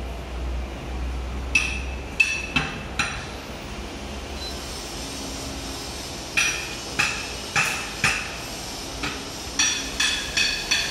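Hammer striking metal, each blow ringing briefly: four blows between about one and a half and three seconds in, then a longer series of blows, roughly two a second, from about six seconds in.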